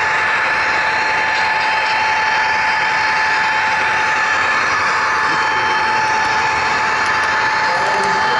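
HO-scale model train running along the track, heard from a camera riding on it: a steady rolling rattle of wheels on rail with a constant high whine.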